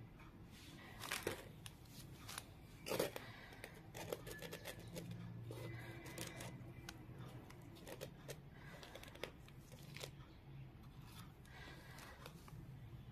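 Faint clicks, ticks and rustles of metal tweezers handling a faceted gem and a paper cutout on a cloth, with two louder taps about one and three seconds in.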